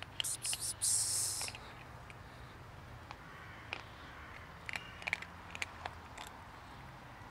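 Kitten crunching dry cat kibble, with scattered sharp crunches. In the first second and a half there is a loud burst of rustling noise.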